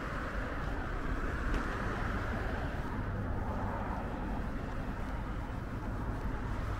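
Steady outdoor waterfront ambience: a continuous low rumble under a broad, even hiss.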